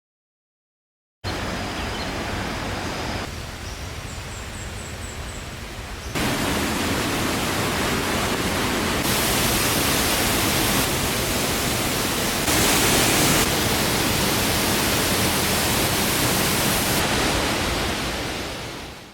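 Steady roar of rushing water from a waterfall, heard in several short clips that jump in level at each cut, after about a second of silence. A few faint bird chirps come through about four seconds in.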